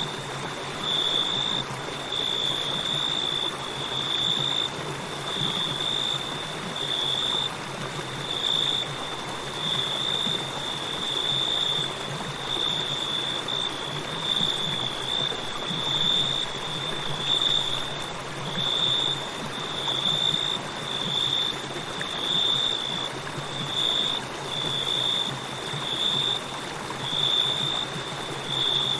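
Crickets chirping in a steady pulse of high ringing trills, about one a second, over the continuous rush of a flowing river.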